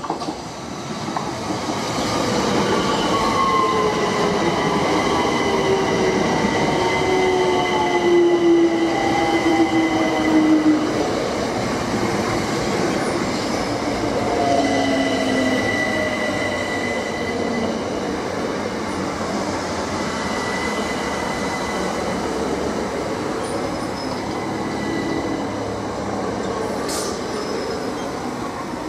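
Southeastern Class 376 Electrostar electric multiple unit slowing as it runs into the platform: wheels rumbling on the rails, the traction motors' whine falling in pitch as it brakes, and a high squeal that comes and goes. It is loudest about eight to ten seconds in, as the leading cars pass.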